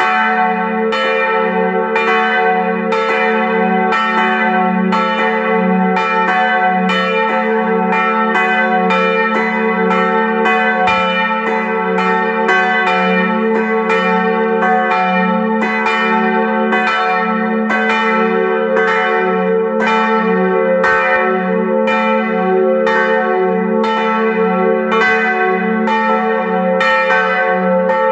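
Several church bells of St. Laurentius ringing together in a full peal: strokes follow each other every half second or so, overlapping over a deep, lasting hum, without a break.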